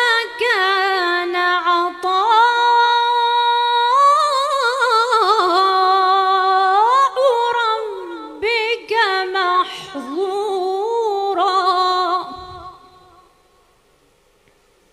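A woman's solo voice chanting Quran recitation in the Moroccan style: long held melodic notes with ornamented turns and glides, in phrases broken by short breaths. The chant stops about 13 seconds in.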